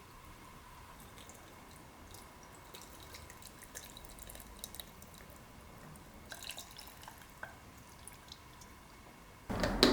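Faint water drips and small scattered clicks of kitchen work. Near the end a louder, steady noise starts abruptly.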